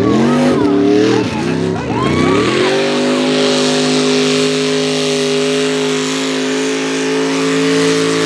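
Mud-race pickup's engine revving up and down as it plows into the mud pit, then held at a steady high rev from about three seconds in, with a rushing hiss of tyres churning through mud.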